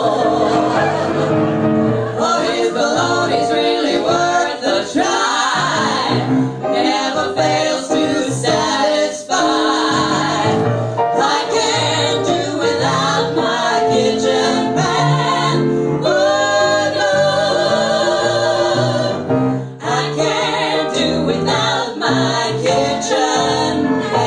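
Female vocal trio singing together into microphones over piano accompaniment, live, with a long held note wavering in vibrato just past the middle.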